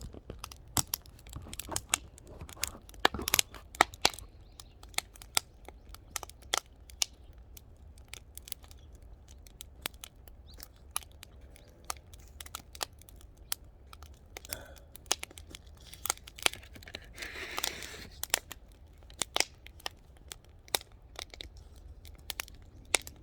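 Wood fire crackling, with irregular sharp pops and snaps from the burning logs.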